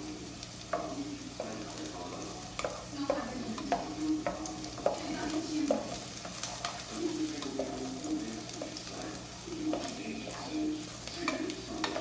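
Onion sautéing in a pot, sizzling while a spoon stirs it, with irregular clicks and scrapes of the spoon against the pot about once or twice a second.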